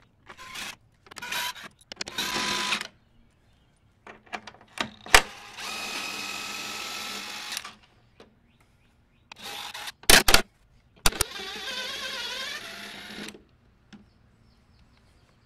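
Cordless DeWalt drill/driver spinning out the bolts that hold a truck grille: three short trigger pulls with a whining motor, then two longer runs of a couple of seconds each, the last one wavering in speed. A few sharp clicks fall between them.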